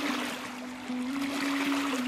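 Background music with slow sustained notes stepping between pitches, over the swelling wash of small waves lapping on a pebble shore.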